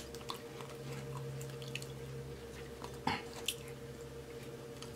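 Faint wet clicks and smacks of a person chewing food with closed lips, a handful of scattered ticks over a steady low hum.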